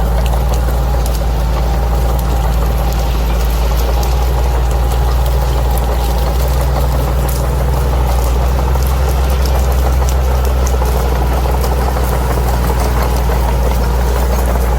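Bulldozer's diesel engine running steadily at a constant note, with faint scattered clicks over it.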